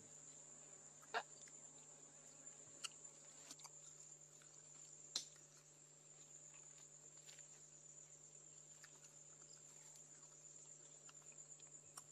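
Faint, steady high-pitched trilling of insects, with a few light clicks scattered through it.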